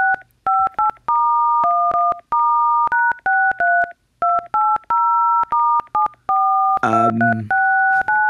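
iPhone phone-keypad DTMF tones: the two-note beeps of keyed digits, some short and some held, played in a quick run that makes a tune. A brief voice-like sound cuts in about seven seconds in.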